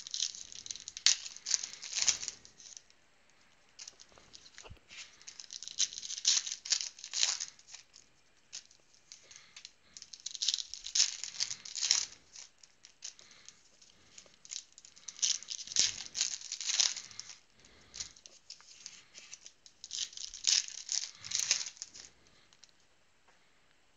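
Foil trading-card pack wrappers being torn open and crinkled by hand, in five crackly bouts about five seconds apart.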